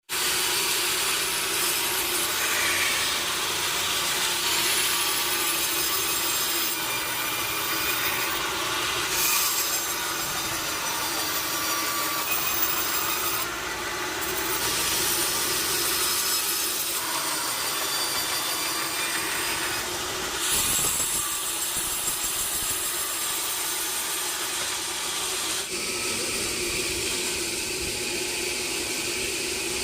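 Sawmill saw cutting through a wooden log: a steady machine hum under continuous hissing cutting noise, its character changing abruptly a few times.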